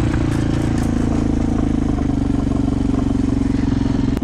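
Small utility vehicle's engine running steadily under way, its pitch rising slightly about halfway through.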